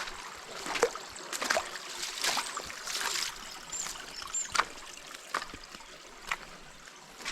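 Footsteps wading and splashing through a shallow, rocky stream over running water, with irregular knocks and splashes.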